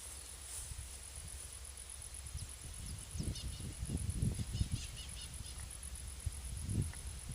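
An insect's steady high, rapidly pulsing trill, with a few short chirps about halfway through. Irregular low rumbles swell and fade through the middle and again near the end.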